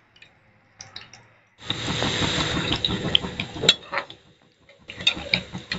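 Bathua-leaf pakoras deep-frying in hot oil in a metal kadhai, sizzling steadily after starting abruptly about one and a half seconds in. A few sharp clicks of a spoon against the pan sound over the sizzle.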